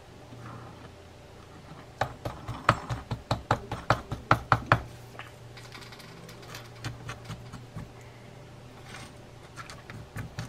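Star drag of a Daiwa Millionaire 4HM baitcasting reel being spun down its shaft by hand, giving a quick run of sharp clicks, about five a second, for a couple of seconds, then a few fainter clicks.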